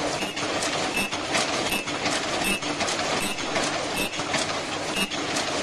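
Servo-driven fully automatic face-mask making machine running: a steady mechanical clatter full of rapid clicks, with a short high tone recurring about once a second as the machine cycles.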